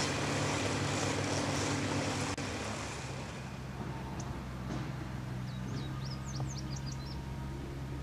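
Engine running steadily, with a broad hiss over it that drops away suddenly a little over two seconds in. A few short high chirps come near the end.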